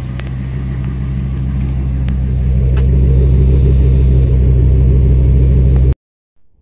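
Ford Triton 6.8-litre V10 engine idling with a steady low rumble. It grows louder over the first few seconds, holds steady, then cuts off suddenly near the end.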